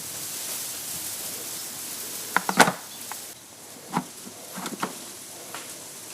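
Hard parts of a commercial wet/dry vacuum cleaner being handled, with the vacuum switched off: a few sharp knocks and clatters, the loudest cluster about two and a half seconds in, over a steady hiss.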